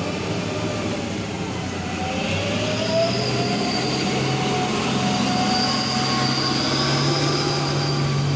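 A vehicle engine running under load with a steady high whine, its pitch stepping up twice.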